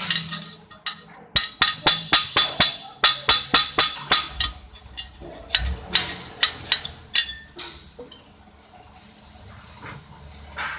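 A hammer striking steel in a quick run of sharp, ringing taps, about five a second, then a few scattered knocks.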